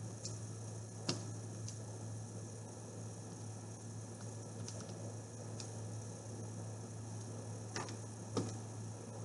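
A few scattered light clicks and taps as a TI-84 Plus CE graphing calculator is handled and its keys pressed, over a steady low electrical hum.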